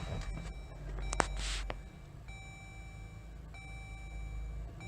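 Jeep Grand Cherokee engine starting: a click and a brief crank about a second in, then a low idle. The dashboard warning chime sounds in long, repeated tones from about two seconds in.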